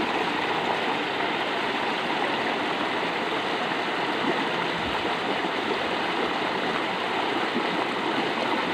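Water rushing along a concrete drainage ditch, a steady, even rush.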